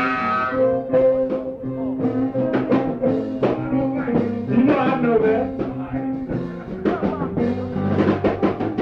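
Chicago blues band playing a slow blues live, with harmonica, electric guitar, piano, bass and drums; the harmonica and guitar play held and bent notes over a steady drum beat, with no vocal line.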